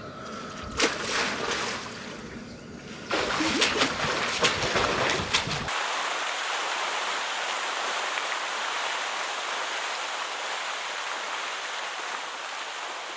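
Water splashing and trickling, with sharp irregular clicks. About six seconds in it changes abruptly to a steady, even rush of running water.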